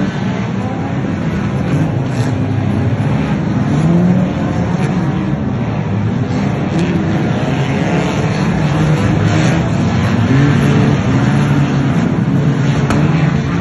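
A pack of 1500cc banger racing cars lapping the track, several engines at once revving up and down in overlapping rising and falling pitches over a constant haze of tyre and track noise.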